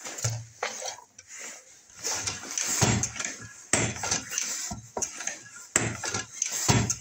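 Lee Load-Master progressive reloading press being worked by hand during a test of its primer feeder: several clusters of metallic clacks and rattles, metal on metal.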